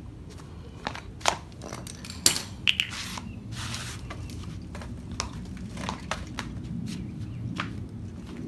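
Scattered light clicks and knocks of handling, a few sharper ones in the first three seconds, over a low steady hum; no engine is running.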